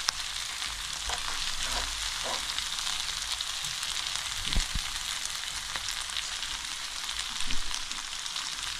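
Chicken, vegetables and boiled noodles sizzling in a hot nonstick wok while being tossed and mixed with metal tongs, a steady crackling hiss. A couple of louder knocks come about halfway and near the end.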